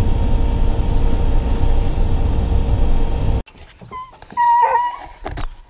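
Pickup truck driving on a dirt road, heard from inside the cab as a steady low rumble that cuts off suddenly about three and a half seconds in. About a second later a hunting hound in the truck's dog box whines once in a short, high, wavering cry.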